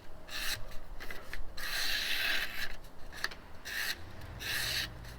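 A freshly sharpened Buck 110 clip-point blade shaving curls off a piece of wood in a series of scraping strokes, one longer stroke about two seconds in.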